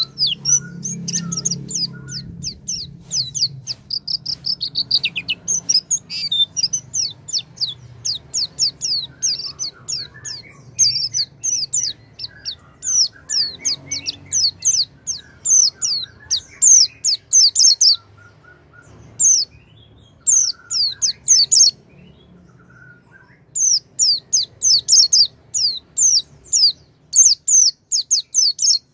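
A white-eye (pleci) singing a lure song: long runs of quick, high, downward-slurred chirps, several a second, breaking off twice briefly in the second half.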